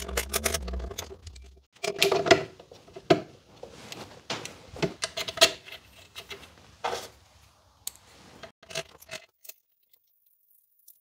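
Metal parts of a Fiorenzato/Sanremo Allground coffee grinder, its burrs and burr carrier, being fitted back into the grinder by hand: a run of irregular clicks, clinks and knocks. It stops abruptly about nine seconds in.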